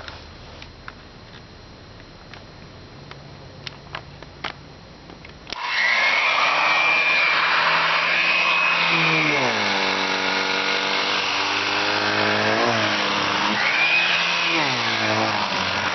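A few light clicks, then about five and a half seconds in the vintage Electrolux central vacuum comes on suddenly and runs loud, the suction through the hose making a high whine. Its pitch slides down and back up several times as the nozzle works over the upholstery of a recliner.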